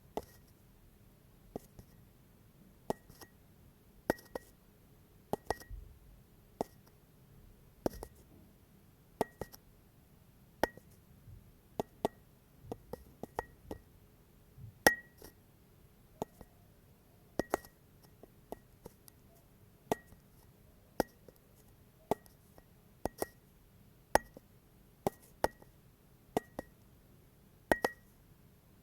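Irregular sharp ticks, roughly one or two a second and varying in strength, each with a brief high ringing note, over a faint low hum.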